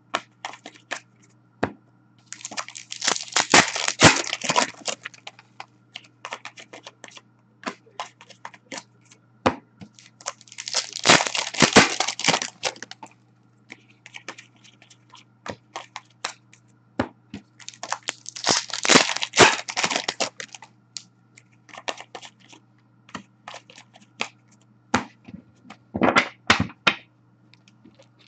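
Hockey card packs being torn open with their wrappers crinkling: three long ripping rustles, roughly seven seconds apart. Between them come quick clicks and snaps of cards being handled and sorted.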